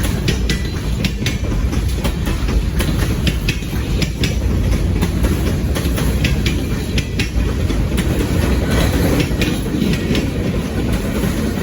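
Ontario Northland train 113's cars rolling past with a steady heavy rumble, their wheels clicking and clacking over the rail joints.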